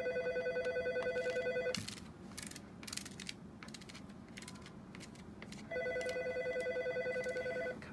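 A telephone rings twice with a rapidly warbling electronic tone, each ring about two seconds long and about four seconds apart. Faint light scraping of a plastic card spreading powder over a metal capsule-filling plate can be heard between the rings.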